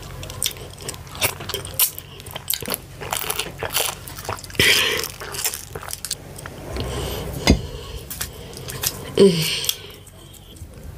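Close-miked eating sounds of fufu with ogbono and ewedu soup: chewing with many short mouth clicks and smacks. A single sharper knock comes midway, and a short falling vocal sound follows about nine seconds in.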